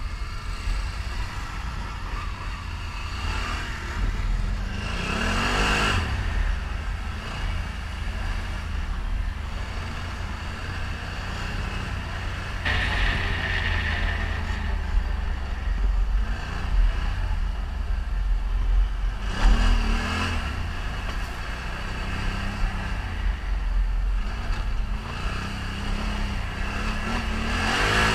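ATV engine running while riding a trail, its pitch rising and falling as the throttle is worked, several times over.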